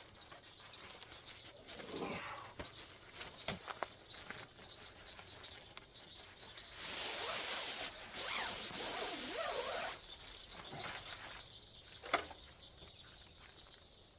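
Tarp packaging being handled and opened: rustling, with a louder stretch of rustling and scraping for about three seconds midway and a single sharp click near the end. A faint, regular insect chirping runs underneath.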